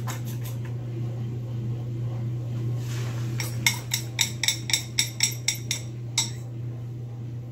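A metal fork clinking against a ceramic mixing bowl while beaten eggs are poured out of it into a skillet. About three and a half seconds in comes a quick run of about ten clinks, roughly four a second, with one more shortly after, over a steady low hum.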